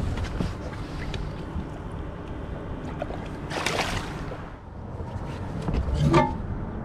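A catfish splashing at the surface of the river beside the boat, about three and a half seconds in, over a steady low rumble of wind and water. A louder knock comes near the end.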